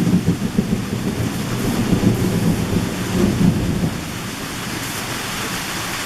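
Heavy summer downpour with a rolling rumble of thunder that eases off about four seconds in, leaving the steady hiss of rain.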